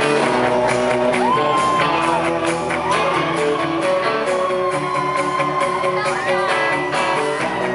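Live rock band playing, led by electric guitars, with shouts and whoops from the crowd.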